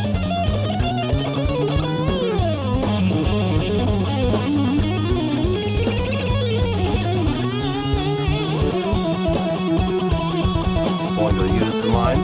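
Instrumental rock music: fast electric guitar lines with pitch bends over bass guitar and busy drums.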